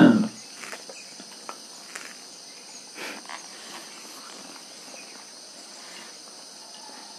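Crickets and other insects chirring in a steady high-pitched chorus, with a few faint ticks and taps near the microphone. A brief loud noise at the very start.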